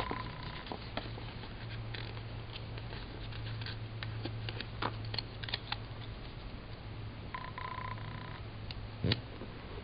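Small ticks, clicks and rustles of sticker paper being handled, peeled and pressed onto a spiral planner page, over a steady low hum, with a sharper snap near the end. A short buzzing tone sounds at the start and again about seven and a half seconds in.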